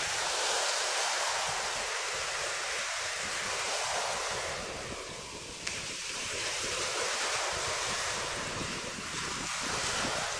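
Steady wash of surf on a beach, with wind buffeting the microphone.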